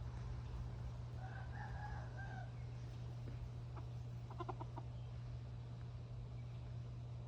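Chickens: a faint drawn-out rooster crow about a second in, then a quick run of short clucks around four seconds in, over a steady low hum.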